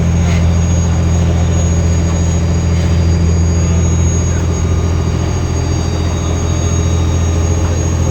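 A boat engine running steadily at a constant speed, giving a loud, even low drone.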